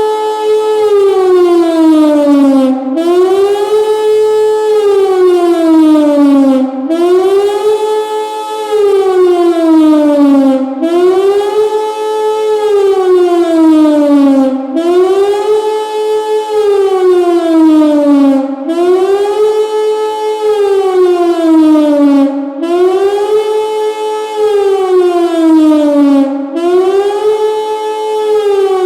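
Pintsch Bamag high-performance siren (HLS) sounding the German wailing signal "Warnung der Bevölkerung" (warning of the population). It is a loud, unbroken wail that rises quickly and sinks more slowly, repeating about every four seconds.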